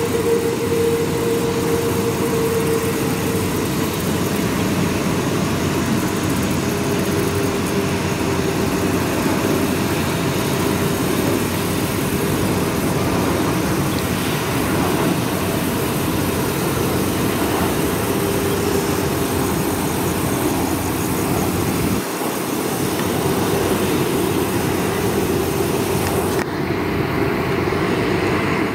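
Airbus A330-900neo's Rolls-Royce Trent 7000 turbofans at taxi power as the airliner rolls past: a steady jet rumble with a held mid-pitched whine. The hiss dulls near the end.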